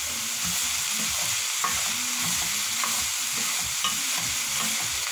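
Sliced vegetables sizzling steadily in a pan over high heat while a wooden spatula stirs them, with three light clicks of the spatula against the pan.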